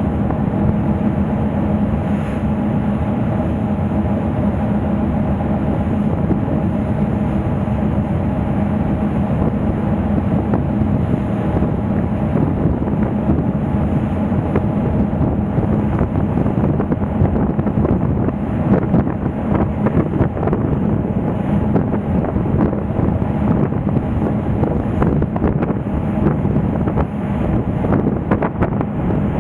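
Car ferry's engine running with a steady low drone, with wind buffeting the microphone. The buffeting grows gustier in the second half.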